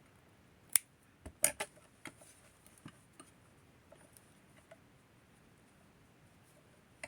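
Hands handling a doll and small tools close to the microphone: a few sharp light clicks and taps in the first three seconds, then only faint scattered ticks.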